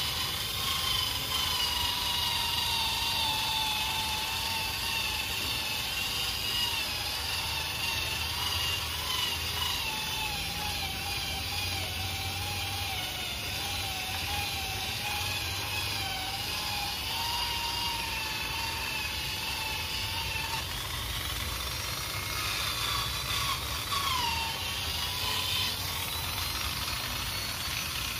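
Handheld electric polisher with a foam pad running while buffing painted body panels, its motor whine wavering slowly in pitch and dipping briefly near the end.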